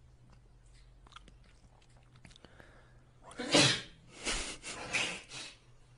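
A person sneezing: one loud sneeze about three and a half seconds in, followed by three shorter breathy bursts.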